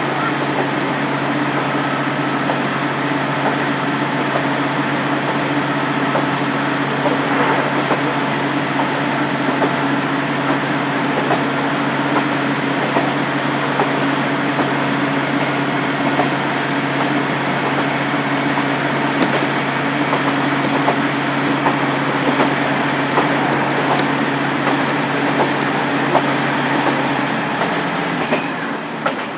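Diesel railcar engine, the original DMF15HSA of a KiHa 47, idling steadily with a low hum while the train stands; its steady note drops away about a second before the end.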